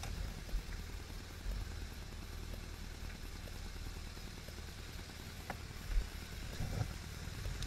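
Vehicle engine running steadily at low revs, with a short knock about six seconds in.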